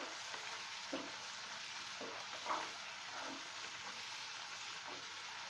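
Almond halwa (ground almonds cooked in ghee, milk and sugar) sizzling in a nonstick pan as it is stirred with a silicone spatula: a steady frying hiss with a few soft scrapes and knocks of the spatula against the pan. The mixture is thick and nearly done.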